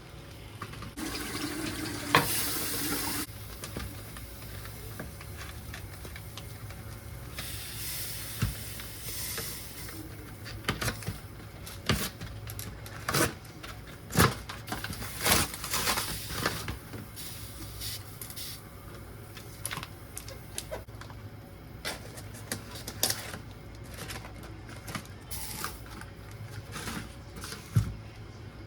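Water running from a tap in two short spells, then a long series of irregular clicks and knocks from kitchenware being handled, over a steady low hum.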